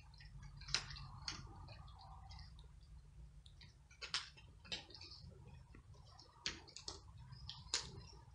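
Cats crunching dry kibble: faint, irregular sharp crunches and clicks over a low steady hum.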